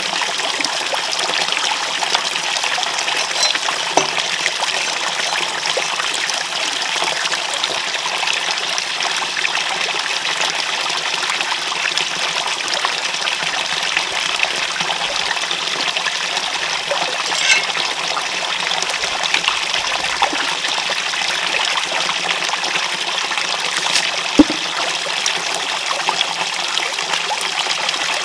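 Steady running water trickling and flowing. About three-quarters of the way through there is a single sharp knock.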